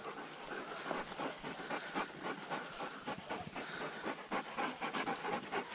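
Hunting dogs panting, with an irregular crackling rustle from movement through dry brush.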